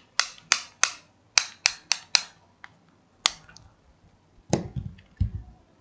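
Sharp plastic clicks from handling a handheld radio and its accessories: a quick run of about seven in the first two seconds and one more a second later, then a few duller knocks near the end.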